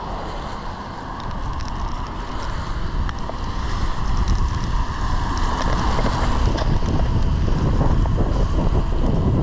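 Strong wind buffeting the camera microphone: a deep rushing noise that grows louder about two seconds in and stays strong, with a few light ticks.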